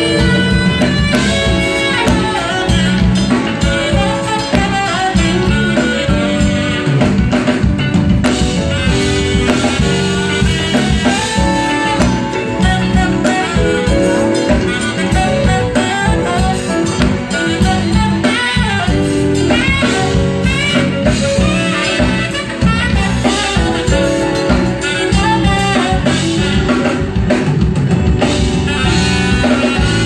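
Live band playing a smooth-jazz number: saxophone lead over drum kit, electric guitars and keyboards.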